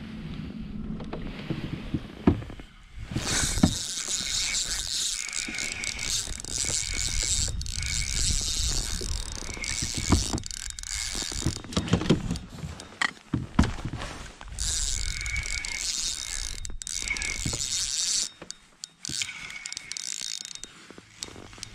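Spinning fishing reel being cranked, retrieving line with a steady mechanical whir. The reeling starts a few seconds in, pauses briefly a couple of times and stops shortly before the end.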